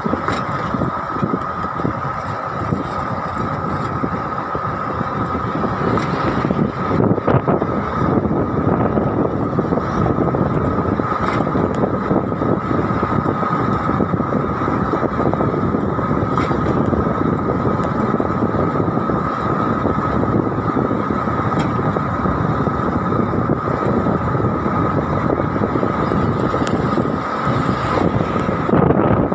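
Road and wind noise from a vehicle driving at a steady speed, with a thin steady whine running through it. A truck passes close alongside near the end.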